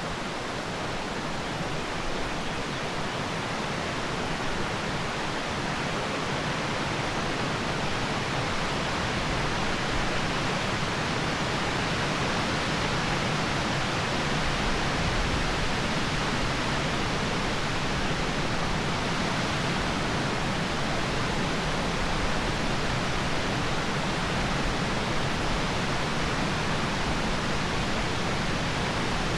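Steady rushing of a mountain stream, growing a little louder over the first ten seconds and then holding even.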